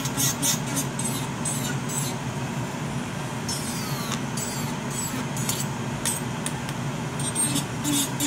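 Nail dust collector fan running steadily at full speed under an electric nail drill, whose bit grinds on the fingernails in short repeated scratchy strokes, most frequent at the start and near the end.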